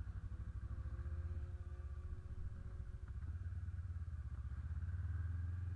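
Honda CB 500 parallel-twin engine running low and steady as the motorcycle pulls away and rides slowly, heard close from the bike itself.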